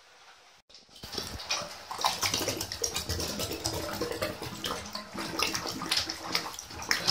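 Muddy floodwater gurgling and bubbling at a bathtub plughole, with many small irregular pops, starting about a second in: storm-flooded drains backing up into the tub.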